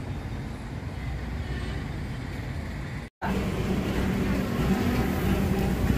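Passenger boat engine running with a steady low rumble. The sound cuts out for a moment about three seconds in and comes back louder.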